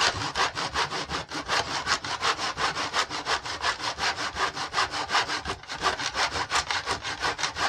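Hand saw cutting through a wooden facing strip held in a mitre box: rapid, even back-and-forth strokes, about five a second, with a brief break about five and a half seconds in. The saw is a wee bit on the blunt side.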